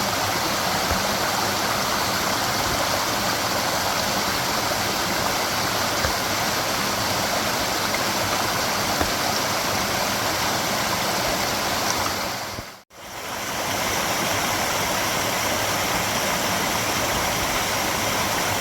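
Waterfall with rushing water making a steady, loud roar. About 13 seconds in it fades out to silence for an instant and comes straight back.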